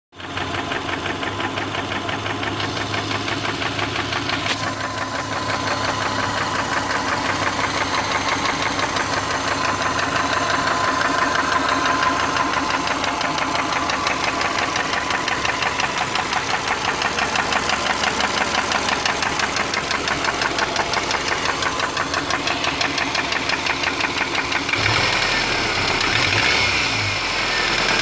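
2003 Subaru Forester's flat-four engine running with a steady, rapid, rhythmic knock. The knock persists with the engine warm, and the owner is unsure whether it is piston slap, rod knock or the belt tensioner.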